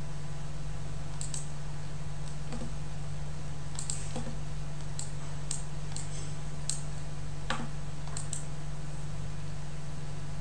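Computer mouse and keyboard clicks: about a dozen short, sharp ticks at uneven intervals. Under them runs a steady low electrical hum.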